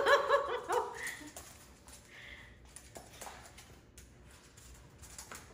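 A dog and a capuchin monkey play-fighting: a quick string of short, high yips in the first second, then quieter with scattered light taps.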